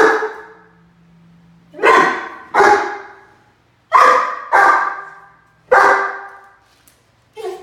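Harlequin Great Dane puppy barking: about seven loud barks, mostly in pairs, each echoing briefly off the hard tiled walls.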